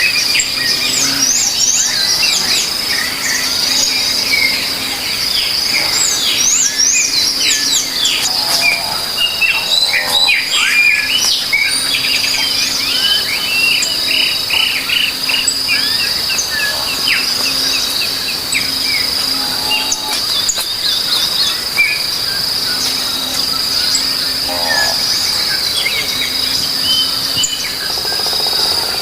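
Wild outdoor ambience: a steady high-pitched insect drone, with many birds chirping and trilling over it.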